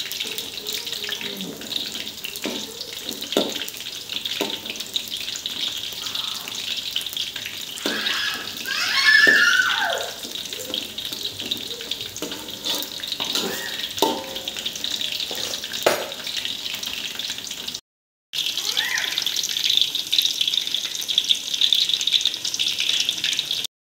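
Eggplant pieces deep-frying in oil in an aluminium wok: a steady crackling sizzle, with a metal spatula scraping and tapping against the wok now and then. Near the middle a louder, wavering pitched sound rises over the frying for about two seconds. The sound cuts out briefly about three-quarters of the way through.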